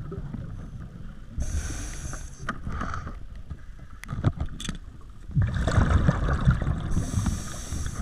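Scuba diver breathing through a regulator underwater: a hissing inhale about one and a half seconds in, a bubbling exhale rumble from about five and a half seconds, and another hissing inhale near the end. A few light clicks around four seconds in.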